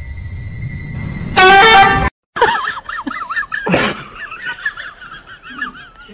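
A loud horn-like honk about a second and a half in, over a steady high beep. After a short break comes a wavering whistle-like warble, with a sharp thump near four seconds.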